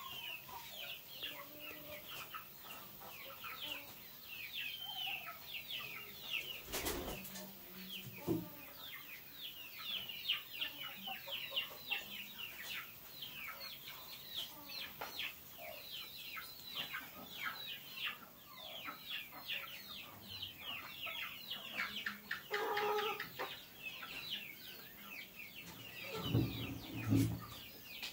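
Many birds chirping continuously in short high calls, several a second, with a few bumps of handling noise, the loudest near the end.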